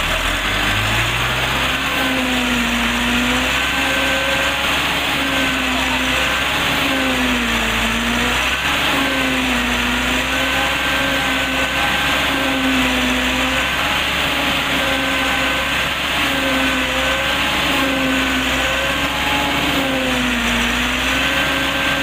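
Tractor-driven Celmak stationary silage chopper running at speed, chopping maize stalks and blowing the chopped silage out of its spout. It rises in pitch in the first second or so as it comes up to speed, then holds a steady whine. The whine briefly sags and recovers every second or two as each armful of stalks is fed in and loads the machine.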